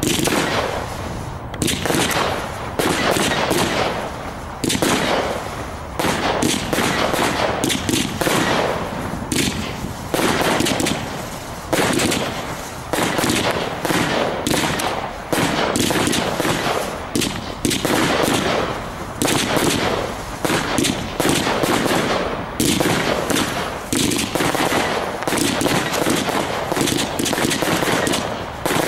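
Exclusive Fireworks' Dragon's Fury 66-shot firework cake firing, a continuous rapid string of launch bangs and bursting shots with no pause.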